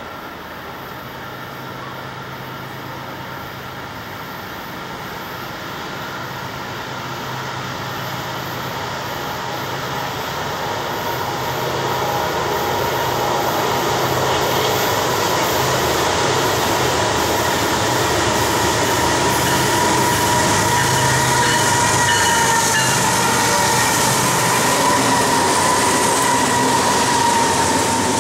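Diesel locomotives of a BNSF double-stack freight train approaching and passing: engine hum and wheel-on-rail noise growing steadily louder over about twelve seconds, then holding as the stack cars roll by. A steady high-pitched tone sits over the rolling noise in the second half.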